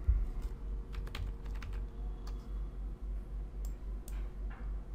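Scattered light clicks of computer input, about ten at irregular intervals, over a steady low electrical hum.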